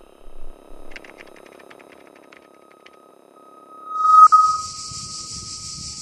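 A steady electronic tone over a low pulsing hum, with a quick run of laptop key clicks about a second in. The tone swells to a loud peak about four seconds in and fades, as a high steady hiss takes over.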